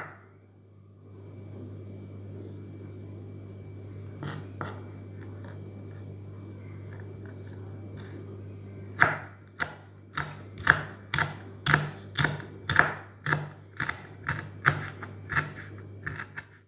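Kitchen knife chopping fresh red chilies on a wooden cutting board. There are a couple of cuts about four seconds in, then steady cuts about two a second through the second half, over a low steady hum.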